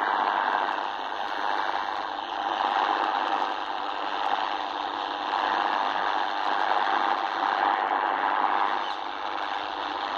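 Shortwave static and hiss from an XHDATA D-808 radio's speaker tuned to 15,400 kHz, the signal swelling and fading every couple of seconds with little clear programme audio. It is a weak signal because the Bengaluru transmitter is beamed toward East Africa, not toward northern India.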